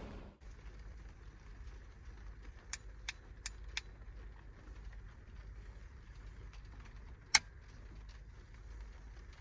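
Small handling sounds inside a parked van at night over a low, steady rumble: four light clicks and taps about three seconds in, then one sharp click a few seconds later, just before the lights go out.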